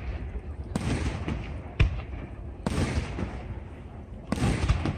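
Aerial fireworks going off: about four sudden bangs a second or so apart, each trailing off in a crackling hiss.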